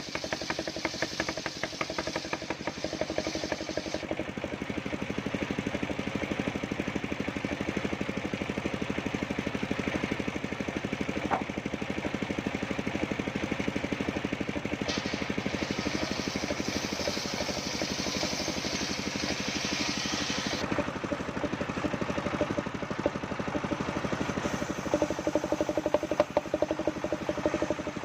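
Engine of a homemade circular sawmill running steadily with a rapid knocking beat. A higher hiss comes and goes over it, dropping out a few seconds in and returning for several seconds past the middle, as the saw works through coconut wood.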